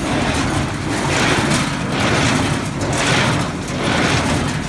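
New Holland 273 Hayliner square baler running, its plunger stroking about once a second and working as it should, over a steady engine drone.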